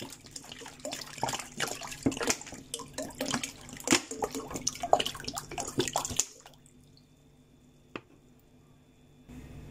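Water pouring from a plastic bottle into a large pan already holding water and washed lentils, with irregular splashing that stops about six seconds in. Near silence follows, broken once by a single small click.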